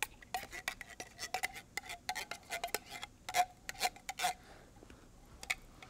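Irregular scraping and clicking of a metal can, a few strokes a second, some with a faint ring, as condensed cream of chicken soup is emptied into a slow cooker. The strokes die away about four and a half seconds in, leaving only a couple of faint clicks.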